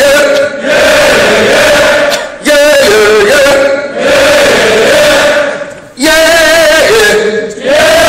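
Male rock singer and arena crowd singing long held notes without the band, the voice wavering with vibrato, in phrases of one and a half to two seconds with short breaks between them.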